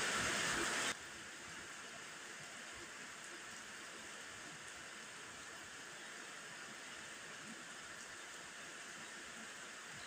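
Steady rain, loud for about the first second, then dropping suddenly to a quieter, even hiss of rain.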